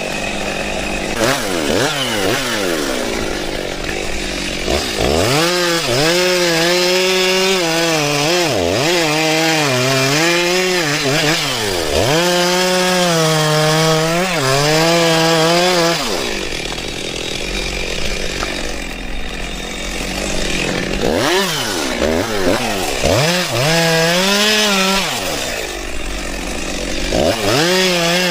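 Cordless battery chainsaw cutting wood. The motor's whine dips in pitch and recovers again and again as the chain bites and is eased, with a rougher stretch of steady sawing partway through.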